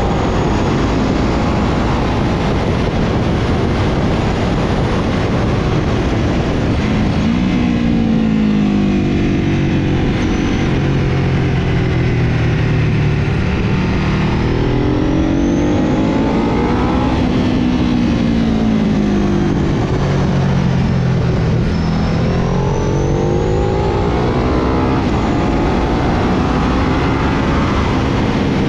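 Sport motorcycle engine heard onboard at racetrack speed, its pitch climbing under acceleration and dropping off under braking several times, under a constant rush of wind.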